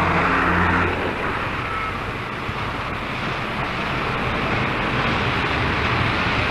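A vehicle engine running steadily, with a low hum that is a little stronger in the first second.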